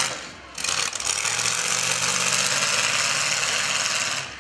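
Several demolition-derby cars' engines running together at idle, a loud, steady engine noise that dips briefly just after the start and cuts off abruptly near the end.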